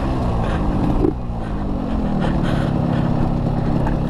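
Yamaha RX-King's two-stroke single-cylinder engine on the move: its pitch falls over the first second, jumps briefly about a second in, then falls again and settles to a steady note.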